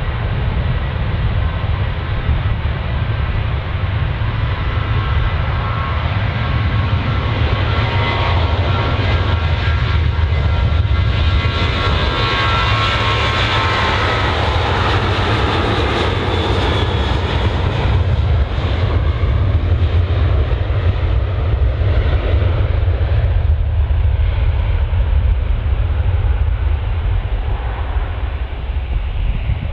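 Jet airliner passing by: a steady engine rumble with a whine of several tones that slides down in pitch, swelling to its loudest and brightest about halfway through, then fading away.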